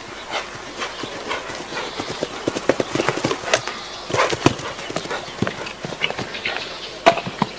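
Hoofbeats of a showjumping horse cantering on grass turf, a run of irregular thuds with a louder cluster about halfway through.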